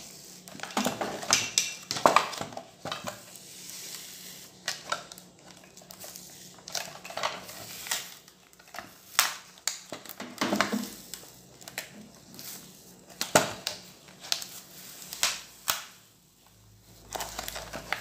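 Membrane keypad of an Electrolux MTD30 microwave being peeled by hand off the adhesive on its plastic front panel, which takes a lot of force. The plastic film crackles and snaps irregularly as it comes away.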